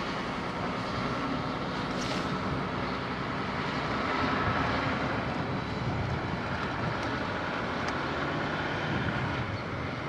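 Wirtgen W210i cold milling machine at work with dump trucks: a steady heavy diesel machinery drone and rumble, a little louder around the middle.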